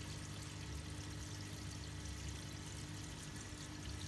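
Water pouring and trickling steadily over the low, even hum of the Deltec Twintech calcium reactor's pumps.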